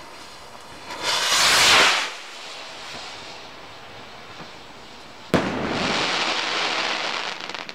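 Primed Deutschland firework rocket: a loud rushing hiss about a second in as it climbs, then a sharp bang about five seconds in as it bursts, followed by about two seconds of dense crackling glitter.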